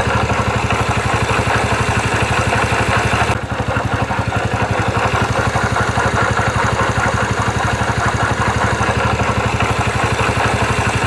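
Yamaha Factor YBR's single-cylinder four-stroke motorcycle engine idling steadily with an even, rapid pulse, briefly dipping in its higher sound about three and a half seconds in. It carries a strange engine noise that the owner cannot explain.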